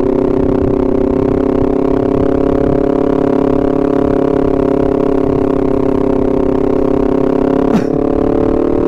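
Honda CBR250RR parallel-twin engine running at steady cruising revs, its pitch holding nearly constant and rising slightly near the end. There is a brief knock about eight seconds in.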